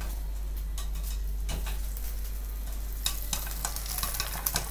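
Popcorn kernels popping in hot oil in a lidded pan: scattered sharp pops over a steady sizzle, coming more often in the last second or two. These are the last kernels popping as the batch finishes.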